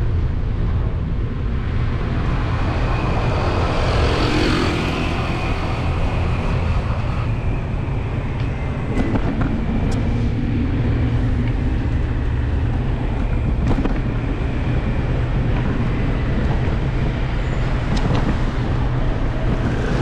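Steady rumble of road and wind noise from riding along a narrow city street, swelling briefly about four seconds in, with a few sharp clicks.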